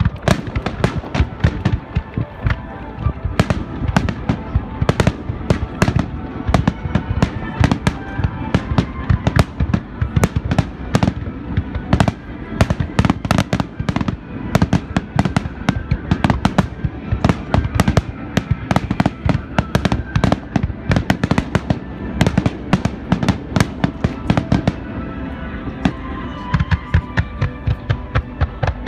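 Fireworks display: aerial shells and rising rockets bursting in a rapid barrage, several sharp bangs a second, with a short lull near the end before the bangs pick up again. Music plays faintly underneath.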